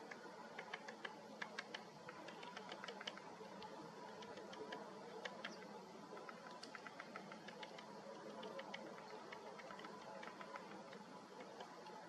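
Great spotted woodpecker pecking and picking at a cone wedged in its anvil in the trunk to get at the seeds: faint, irregular quick taps, densest in the first few seconds and sparser after.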